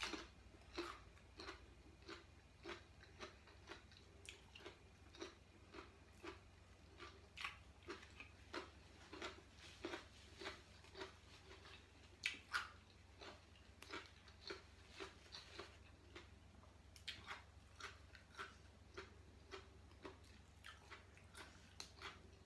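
A person chewing food close to the microphone: faint, moist crunching chews at an even pace of about two a second, over a low steady hum.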